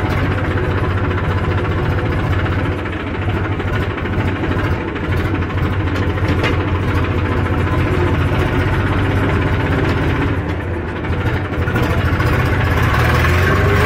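Tractor's diesel engine running steadily with a low, even rumble.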